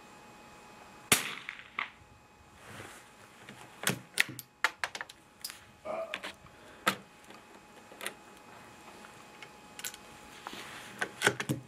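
A single shot from a BSA Century .22 LR bolt-action rifle: one sharp crack with a short ring-off about a second in. It is followed by a run of quieter metallic clicks and clacks as the bolt is worked.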